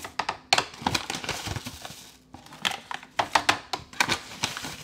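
Ground coffee being scooped into a drip coffee maker's filter basket: a scoop scraping and tapping with rustling, in several bursts of sharp clicks.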